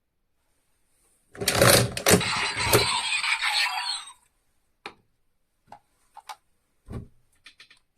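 Plastic clicks and snaps from a DX Kamen Rider Revice toy belt and Vistamp stamp being handled and pressed, with a louder cluster of clatter about a second and a half in, then single clicks every half second or so.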